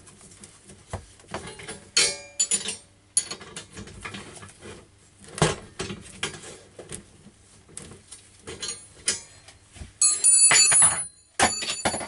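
Hand tools and metal bike parts clinking and knocking in a string of separate clicks, with a louder, ringing metallic clatter near the end.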